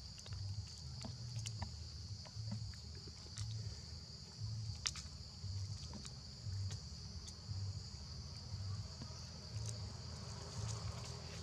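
Steady high-pitched insect drone with scattered small clicks and rustles. Under it is a low hum that pulses about three times every two seconds.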